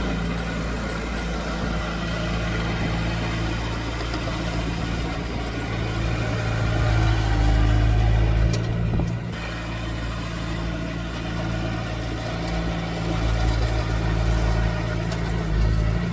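Diesel engine of earthmoving machinery running steadily. It works harder and grows louder from about six to nine seconds in, then eases off briefly.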